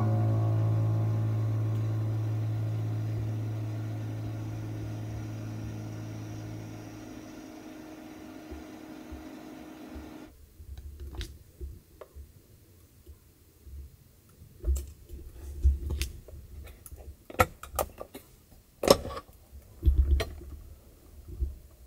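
A held ambient music chord slowly fades and then cuts off about ten seconds in. After that come scattered clicks and knocks, loudest near the end, as the plastic lid of an electric hot sandwich maker is unlatched and lifted open.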